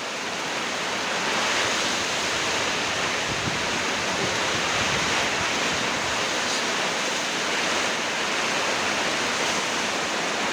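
Steady, loud rushing of a rainstorm: heavy rain with wind.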